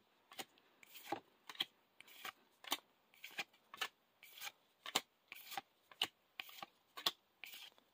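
Yu-Gi-Oh trading cards being slid one at a time off a small stack in the hand: faint, quick card-on-card flicks, about two a second.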